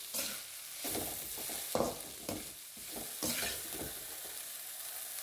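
A spatula stirring and scraping shredded cabbage, carrot and beans around a metal kadai, in about six irregular strokes over a faint sizzle of the vegetables frying in a little oil.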